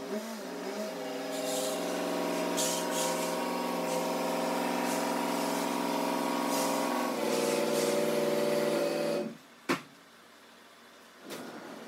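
2015 Ford F-250 Super Duty's 6.7-litre Power Stroke V8 turbo-diesel running at low idle as the truck creeps in at walking pace. It cuts off about nine seconds in, followed by a single sharp knock.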